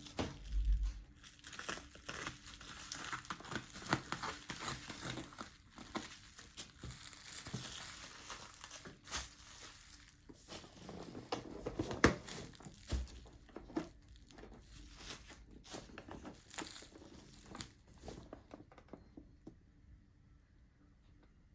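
Packaging being crinkled and torn open by hand: irregular rustling and crackling, with one sharp click about halfway through, then dying down to a few faint rustles in the last few seconds.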